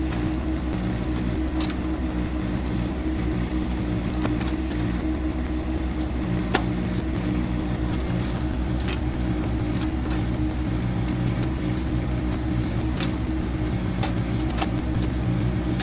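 John Deere 2025R compact tractor's three-cylinder diesel engine running steadily under backhoe work, with a few sharp clicks or knocks, the strongest about six and a half seconds in.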